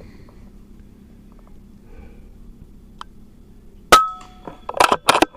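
FX PCP air rifle firing one shot: a sharp crack about four seconds in with a brief metallic ring, followed within a second by several quick metallic clacks.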